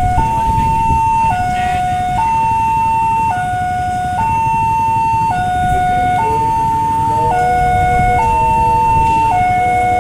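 Railway level-crossing warning alarm sounding its electronic two-tone, alternating a higher and a lower note of about a second each, over steady road-traffic rumble.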